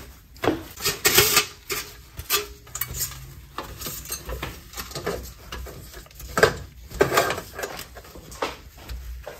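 Dishes and kitchen items clinking and knocking as they are handled and set down, an irregular run of clatters with louder knocks about a second in and again near seven seconds.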